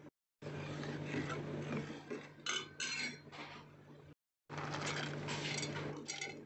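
Metal ladle scraping and clinking against a cooking pot while stirring milky talbina, with a steady low hum underneath. The sound cuts out briefly twice.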